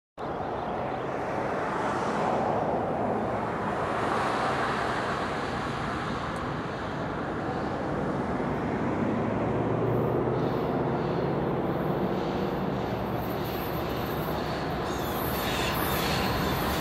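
Four Norfolk Southern diesel locomotives approaching at the head of a freight train: a steady low engine drone and rumble that builds slowly and grows louder near the end.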